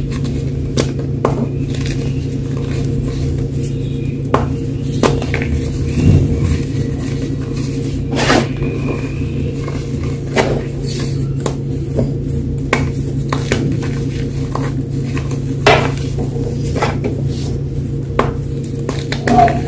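Fresh gym chalk crunching and crumbling in irregular sharp crackles, a few of them louder, over a steady low hum.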